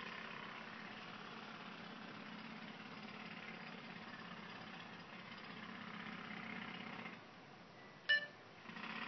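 A steady engine hum with a hiss above it, dropping away about seven seconds in; a short click about a second later.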